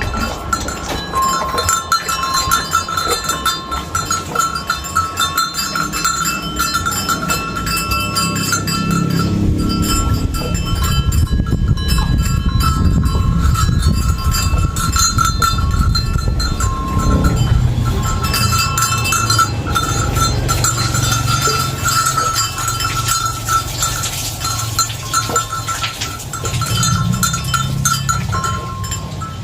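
A cow being dosed with herbal jamu poured into its mouth from a bamboo drenching tube: animal and handling noise, with a low rumble of movement that grows louder about a third of the way in, over a steady high ringing tone.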